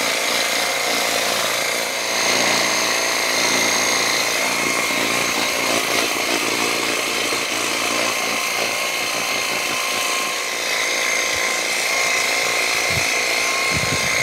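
Fixnow 500E cordless pressure washer running: the battery-powered pump's steady whine over the hiss of its water jet spraying. The sound stops abruptly at the very end.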